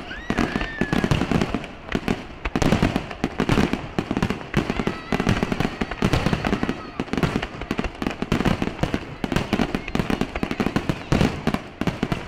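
Aerial fireworks display: a dense, non-stop barrage of shell bursts, the bangs coming several a second and overlapping one another.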